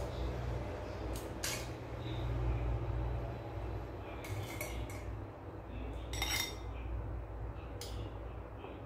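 Metal cooking utensil clinking and scraping against cookware in four short bursts, over a steady low rumble.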